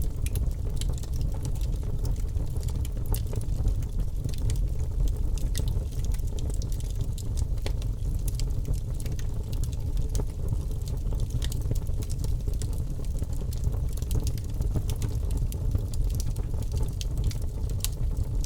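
Wood fire burning in a fireplace: a steady low rumble from the flames with many scattered sharp crackles and pops from the burning logs.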